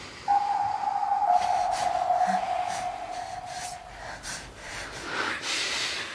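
A single high tone held for about three and a half seconds, stepping slightly lower about a second in, then soft breathing.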